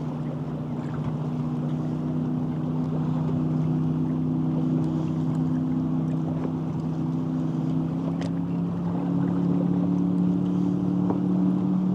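A boat motor running steadily as a low hum of several tones, its pitch creeping slightly upward and getting a little louder over the last few seconds.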